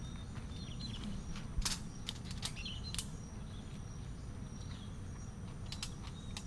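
A few sharp knocks of bamboo poles being handled, grouped in the first three seconds with two more near the end, over forest ambience with birds chirping now and then.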